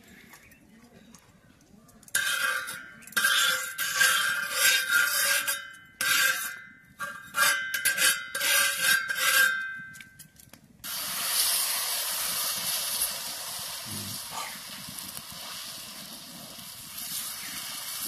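Hot iron tawa over a wood-fired clay stove sizzling in loud, stop-start bursts as liquid is spread over it. About eleven seconds in, wheat-flour chilka batter goes onto it and a steady sizzle sets in.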